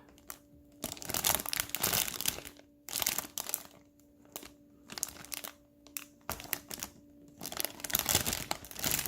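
Plastic bags holding model-kit parts crinkling as they are handled and lifted out of the box, in several irregular bursts with short pauses between.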